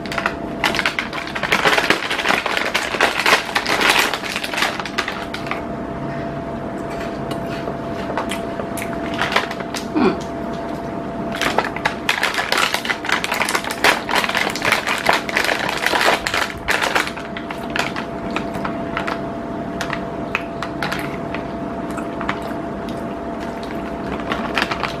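Foil-lined plastic snack wrappers crinkling and tearing as they are pulled open by hand, in irregular bursts of crackling.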